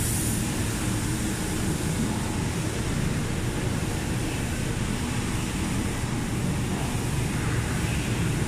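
Steady background noise of a factory floor, an even drone with no distinct knocks, tones or voices.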